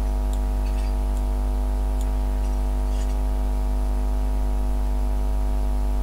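Steady engine drone with a strong low hum, its pitch unchanging, as heard inside a vehicle cab; a few faint ticks in the first three seconds.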